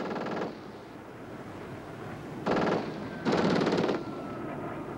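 Short bursts of rapid automatic gunfire from a fighter's guns in a dogfight: one burst at the start and two more around the middle. Under the bursts is a steady hiss, and a faint, slowly falling whine comes in partway through.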